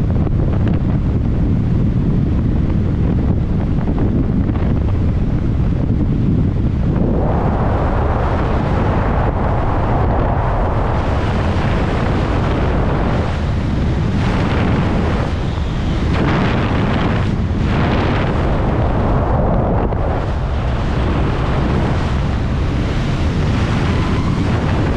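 Loud, continuous wind buffeting the microphone, a steady rush heaviest in the low end that turns brighter and gustier about seven seconds in.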